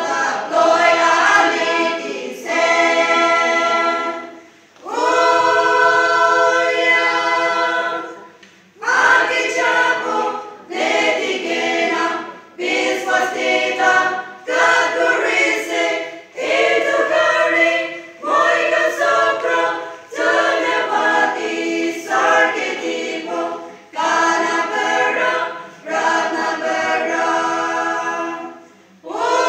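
Women's church choir singing a cappella in short phrases, with brief pauses for breath between them.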